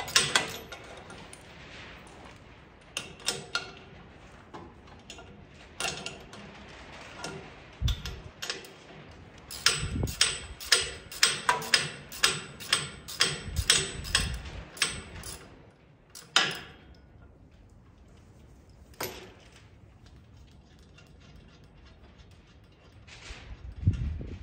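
Socket ratchet wrench clicking in runs of quick clicks with pauses between, as bolts are worked loose from a tractor's front frame, along with a few dull knocks of metal on metal.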